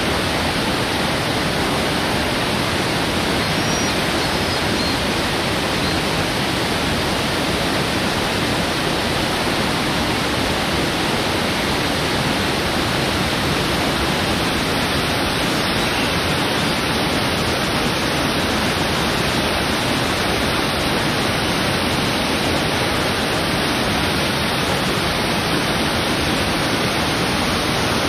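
Water of Brooks Falls pouring over the falls: a steady, unbroken rushing.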